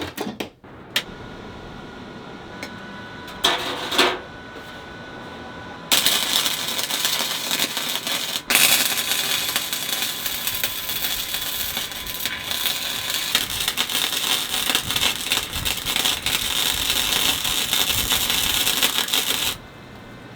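Welding arc crackling steadily as a nut is welded onto steel bicycle handlebars. It starts about six seconds in, breaks off briefly a couple of seconds later, and cuts off suddenly near the end. Before it there is a steady hum with one short burst of noise.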